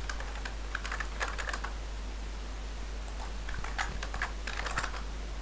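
Computer keyboard being typed on: two short runs of key clicks, the second starting about three seconds in.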